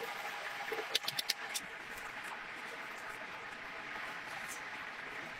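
Hot oil sizzling steadily in a deep fryer as battered fried chicken drains on a wire rack above it. About a second in comes a quick run of five or six sharp clicks, metal tongs clacking against the rack.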